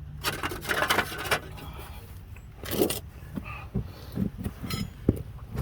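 Metal parts and tools clinking and scraping in several short bursts, as the hub, bolts and wheel speed sensor are handled, over a steady low hum.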